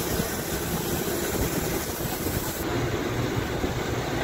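Steady rumble of a moving APST state-transport bus heard from inside the passenger cabin, engine and road noise together. About two-thirds of the way in, the highest hiss drops away suddenly.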